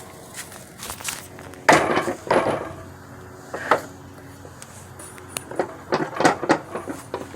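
Irregular knocks and clattering of hard objects, loudest about two seconds in and again around six seconds, with a sharp single knock in between.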